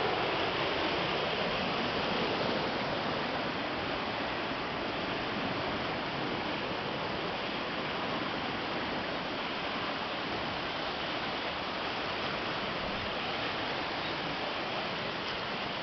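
Small river swollen by typhoon rain, rushing water running steadily with an even, unbroken noise.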